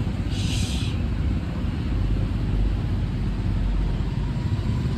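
A steady low outdoor rumble, with one short hiss about half a second in.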